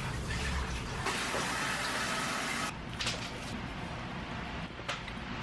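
A steady rushing hiss that stops abruptly, then quieter light clicks of chopsticks tossing noodles in a pot.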